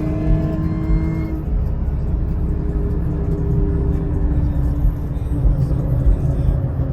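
Steady low rumble of a road vehicle, with held music tones trailing off in the first second and a half.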